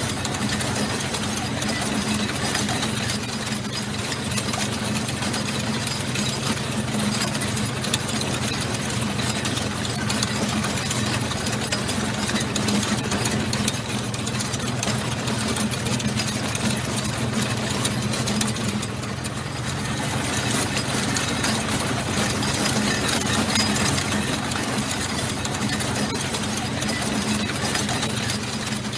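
Military tank on the move: its heavy engine running steadily, with a dense, constant clatter over it.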